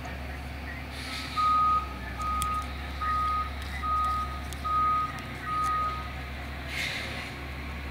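Garbage truck's back-up alarm beeping six times, a single steady tone repeated a little under a second apart, over the low steady sound of the truck's engine running.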